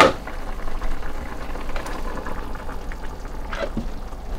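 A short sharp knock at the start, then a pot of stew simmering while thick strained tomato is poured into it from a measuring jug.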